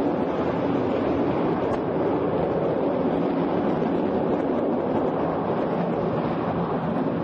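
Steady roar of natural gas burning as it jets from a ruptured high-pressure pipeline.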